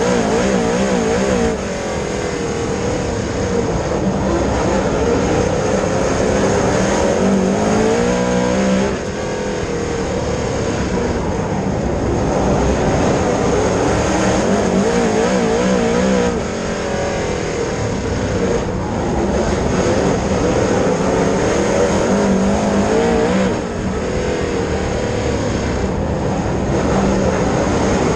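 Dirt late model race car engine running hard at racing speed, its pitch rising and falling through the laps, with a brief ease-off in loudness about every seven seconds.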